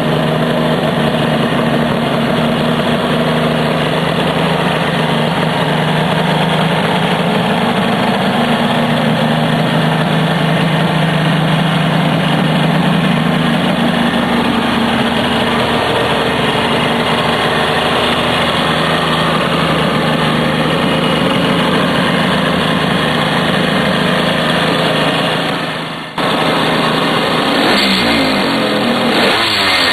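Kawasaki H2 750 cc two-stroke triple idling steadily. After a short break about 26 seconds in, it is blipped a few times near the end, the revs rising and falling.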